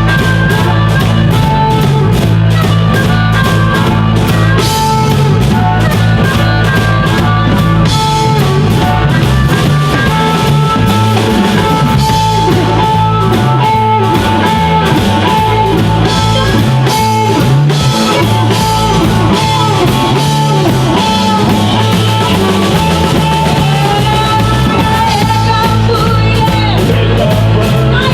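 Live band playing a boogie with drum kit, bass and electric guitar, steady and loud, with held lead notes over the rhythm.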